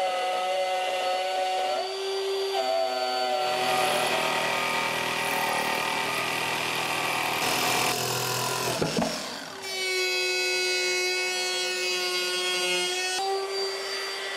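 Ryobi 18V cordless trim router cutting plywood, its motor a steady high whine, in a run of short edited clips. In the middle a cordless jigsaw cuts with a coarser, lower sound. A tool winds down about nine seconds in, and the router then starts cutting again.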